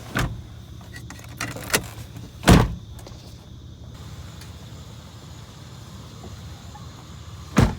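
A vehicle engine idling with a steady low hum, under several sharp knocks and bangs. The loudest bang comes about two and a half seconds in, and another comes near the end.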